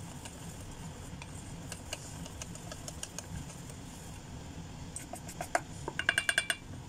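Wire whisk beating cake batter by hand in a stainless steel bowl: soft steady stirring with faint ticks of the wires on the bowl. About six seconds in comes a quick run of ringing metal clinks.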